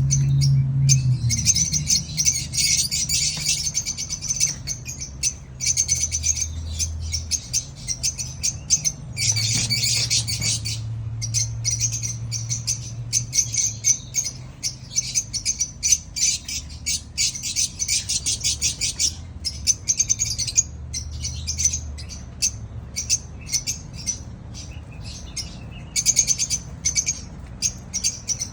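Lovebird chicks calling: fast runs of high, short chirps, many a second, broken by brief pauses.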